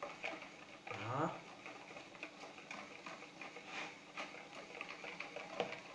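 Wire whisk stirring melted chocolate and butter in a plastic bowl: faint, irregular ticking and scraping of the wires against the bowl.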